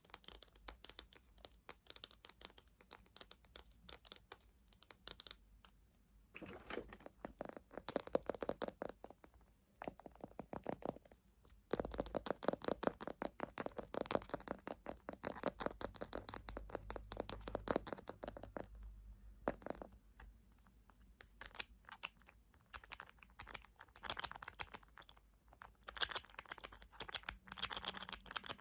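Fingernails tapping and scratching rapidly on small cosmetic containers, in runs of quick clicks with short pauses between them.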